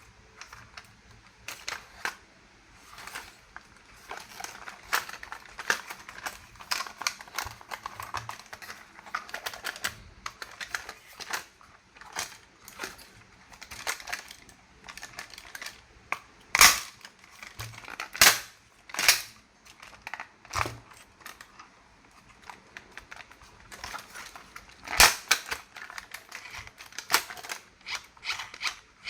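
Hands handling a plastic toy and its packaging: a steady patter of small clicks and rustles, broken by several sharp plastic snaps, the loudest about two-thirds of the way through and again near the end.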